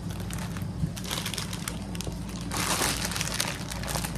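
Packaging being handled and crinkled, with a louder rustle about two and a half seconds in, over a steady low hum.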